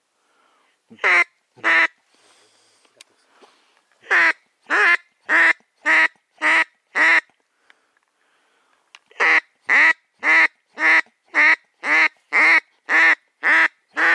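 Loud duck quacking in three runs: two quacks, then six, then nine, about two a second.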